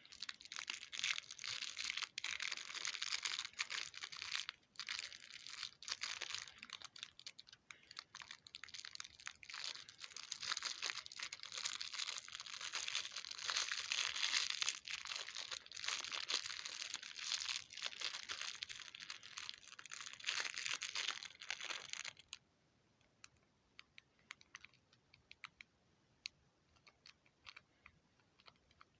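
Kinder Surprise foil wrapper crinkling and rustling as it is handled and torn, dense and continuous, stopping abruptly a little over 20 seconds in. After that come only scattered faint clicks.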